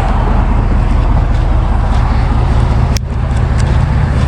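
Roadside interstate noise: an engine running steadily close by while traffic passes. A single sharp click sounds about three seconds in.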